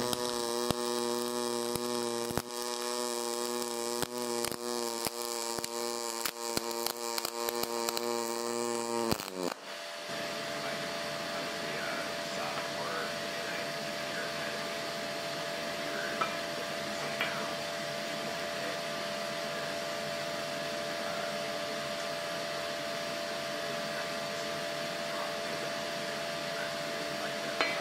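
Pulse MIG welding arc from an HTP Pro Pulse 200 running a long arc length on a steel outside corner: a steady pitched buzz with frequent crackles. It cuts off about nine and a half seconds in, leaving a faint steady hum.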